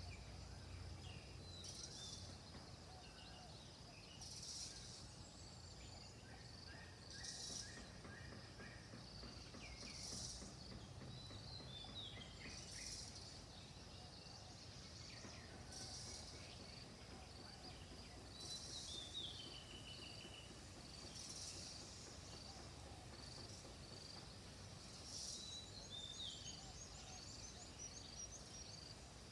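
Faint rural ambience. Insects make high buzzing pulses about every three seconds over a steady run of short chirps, with a few separate bird calls now and then.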